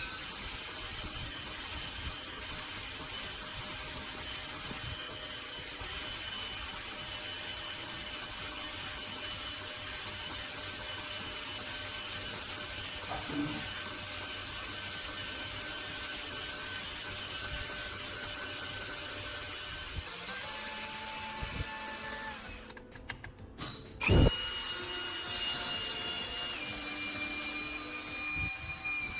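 A small power tool, such as a drill, running steadily with a steady whine for most of the time. It stops briefly near the end, then comes a sharp knock and a steady higher whine that drops a step in pitch.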